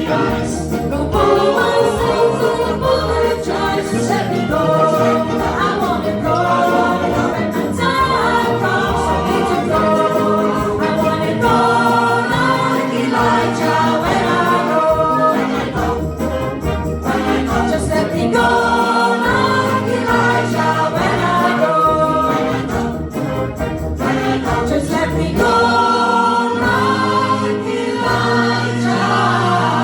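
Choir singing a gospel song, several voice parts holding chords in harmony.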